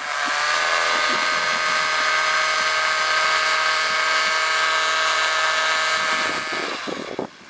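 Paramotor engine and propeller running steadily with a high whine, then falling away over about a second near the end.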